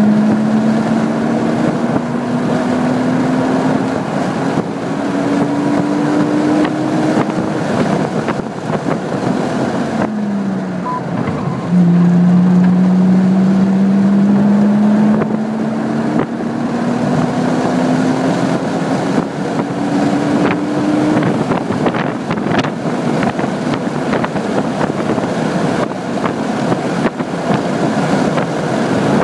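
Car engine pulling hard under acceleration, its pitch climbing steadily for several seconds, dropping briefly about ten seconds in, then climbing again until about twenty seconds in, over constant wind and tyre noise heard from inside the car.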